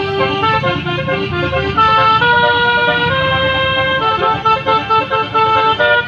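Indonesian bus 'telolet basuri' multi-tone air horn playing a tune, several horn notes sounding together and stepping from one pitch to the next, with the notes changing faster in the second half, over a low rumble.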